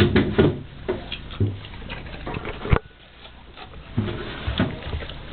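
A Rottweiler eating raw food, with irregular chewing clicks and smacks. One sharp knock comes a little past halfway through.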